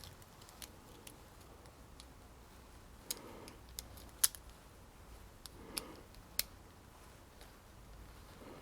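Small metal parts of a tubular door latch clicking together as it is reassembled: a few scattered sharp clicks, the loudest a little past the middle.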